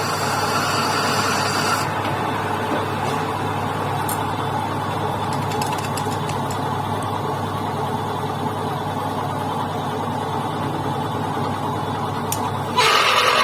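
Workshop machine running steadily with a low hum, and a louder, harsher sound cutting in about a second before the end.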